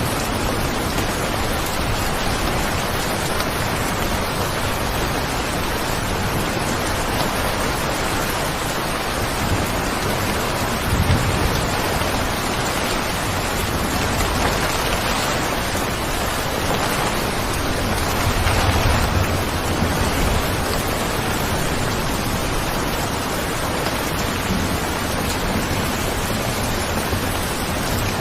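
Steady rainfall, an even dense hiss, with two short low swells about a third and two-thirds of the way through.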